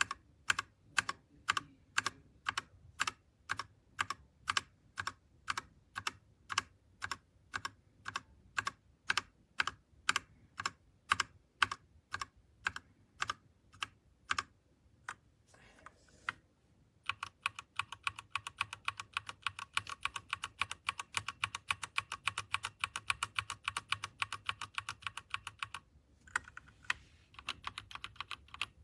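Royal Kludge RK61 60% mechanical keyboard being typed on. For the first half, single keystrokes come slowly and evenly, about two or three a second. After a short pause about fifteen seconds in, fast continuous typing runs, breaks briefly near the end, and resumes.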